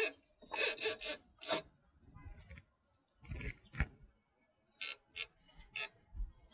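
Irregular metal clinks, knocks and scrapes, a few to a second apart, from hands working the ATV's rear wheel hub onto the greased CV axle splines during reassembly.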